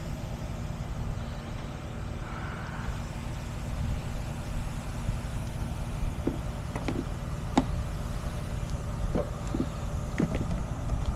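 A truck engine idling steadily. A few sharp clicks and knocks come over it in the second half.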